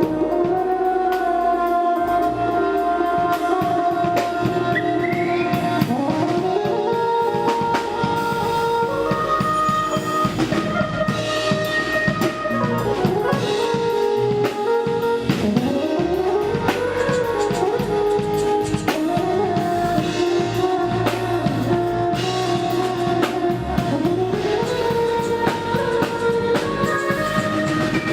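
Jazz-soul band playing a groove: a saxophone melody that slides up and down over a drum kit beat.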